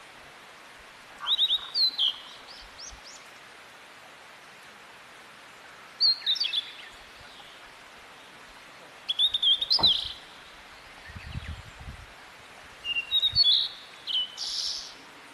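A songbird singing in four short bursts of quick, high chirps and sweeping notes, a few seconds apart. There is a brief low thump partway through.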